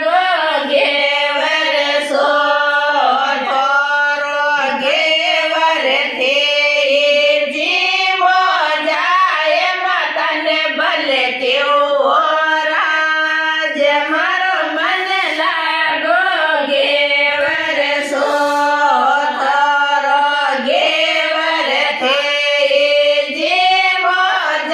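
Women singing a Marwari folk song together, a continuous melodic vocal line.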